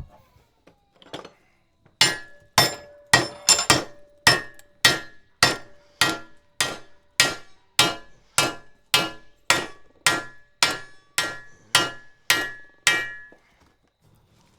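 A blacksmith's hammer striking steel on an anvil, about twenty blows at a steady pace of roughly two a second, each with a short metallic ring. The blows start about two seconds in and stop shortly before the end.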